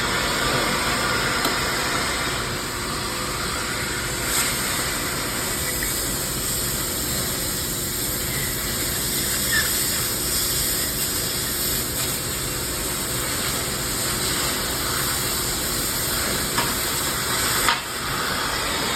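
Oxy-acetylene cutting torch hissing steadily as the oxygen-fuel flame and cutting-oxygen jet burn through steel plate. The hiss drops off abruptly near the end.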